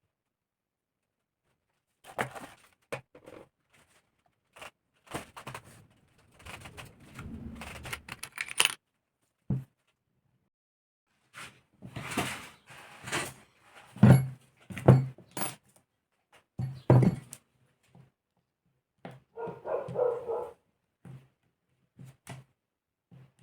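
Metal engine parts and hand tools clinking, rattling and knocking on a worktable during the disassembly of a Saito model aircraft engine, in irregular clusters with short pauses between.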